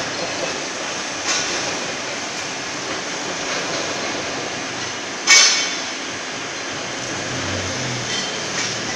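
Steady machine-shop din with a loud, sharp metal clank about five seconds in and a lighter knock just over a second in.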